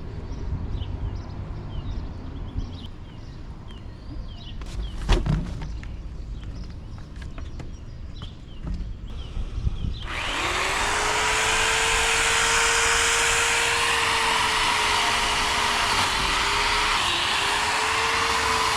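A chainsaw starts about halfway through and runs loud and steady, its pitch dipping slightly twice. Before it, faint bird chirps and one sharp knock.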